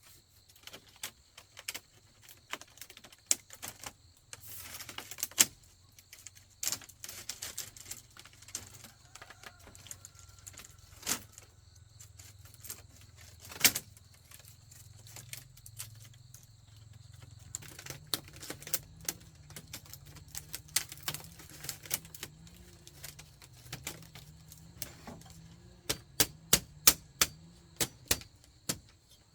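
Irregular sharp taps and knocks, as of hand tools working bamboo, with a quicker run of strikes near the end. A low hum joins about halfway through.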